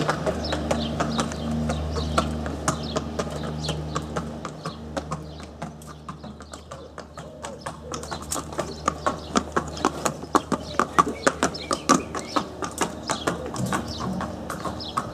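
Horse hooves clip-clopping, the footfalls growing louder and more regular from about halfway through. A steady low hum fades away in the first few seconds.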